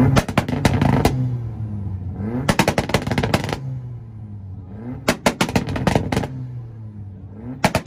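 Tuned car engine bouncing off a two-step launch-control rev limiter: about a second of rapid exhaust pops and bangs, repeated about every two and a half seconds, with the engine note dropping and climbing again between the bursts.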